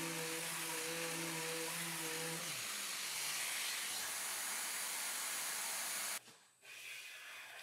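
Electric random orbit sander with a dust-extraction hose running on cedar: a steady hiss with a low hum. About two and a half seconds in the hum slides down and fades while the hiss goes on, then the sound cuts off suddenly about six seconds in.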